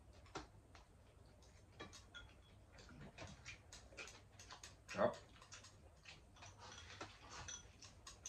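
Chopsticks clicking and tapping against ceramic rice bowls in a run of light, irregular ticks as two people eat, with one louder sound about five seconds in.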